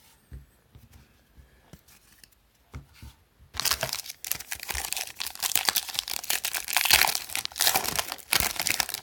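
A few small handling clicks, then about three and a half seconds in, a trading card pack wrapper being torn open and crinkled, a dense crackling that goes on to the end.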